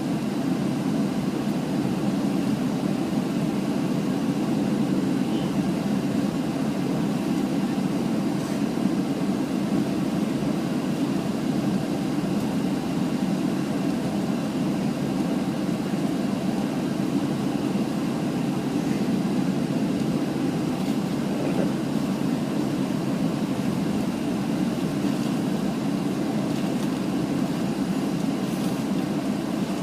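Steady low cabin rumble inside a Boeing 737 taxiing after landing, heard from a forward window seat.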